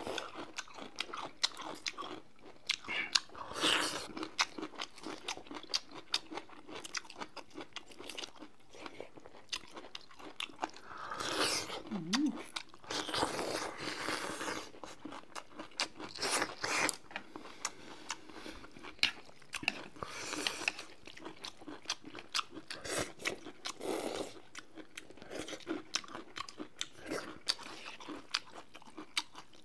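Close-up eating sounds: crunchy bites and chewing of bamboo shoots, many short crisp clicks, mixed with a few longer slurps of noodles.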